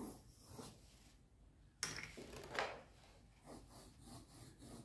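Faint handling sounds of coloured pencils: a rattle at the wooden pencil case with a sharp knock a little under two seconds in, then soft pencil strokes rubbing on paper.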